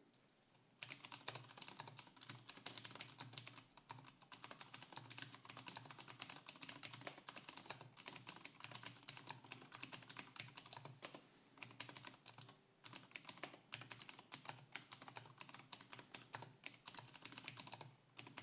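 Typing on a hand-wired 60% mechanical keyboard with clicky switches in a 3D-printed case: a dense, fast run of key clicks starting about a second in, with a couple of brief pauses.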